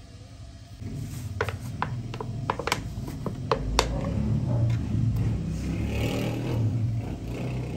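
Metal spoon clinking against a steel mixing bowl, about eight sharp clinks, then scraping and stirring through grated potato. A low rumble runs underneath.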